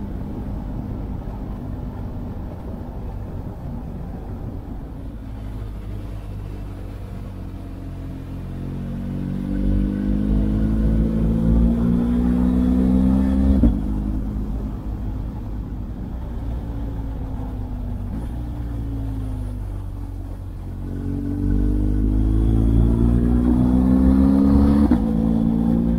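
Motorcycle engine under way, pulling up through the revs twice, each time rising in pitch and then dropping abruptly as the rider shifts gear, with steadier running in between.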